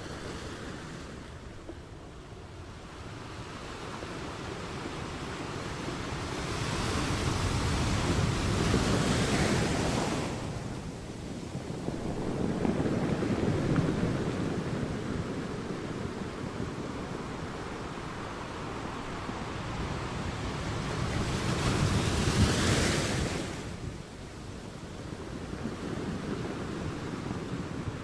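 Ocean waves surging and breaking on the shore, rising and falling; two louder breakers with a bright hissing wash come about a third of the way in and again near three-quarters of the way through.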